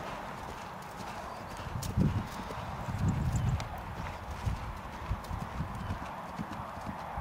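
Hoofbeats of a ridden horse cantering on grass: soft, irregular low thuds, loudest about two and three seconds in, over a steady hiss.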